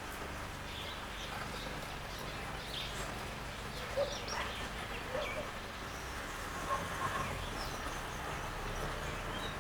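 Wild garden birds giving short, scattered chirps and calls, over a steady low background rumble.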